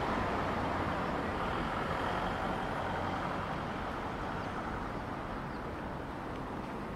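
A passing motor vehicle, its engine and tyre noise fading steadily as it moves away.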